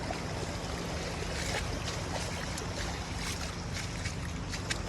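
Steady wash of sea surf with wind, a continuous even noise with a low rumble underneath.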